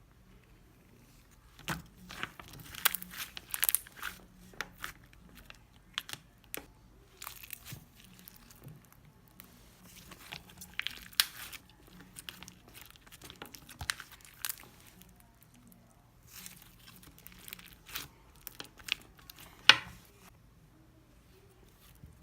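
Slime being squeezed and stretched by hand, giving irregular sticky crackles and small pops of air bubbles in bunches, with one sharp snap near the end.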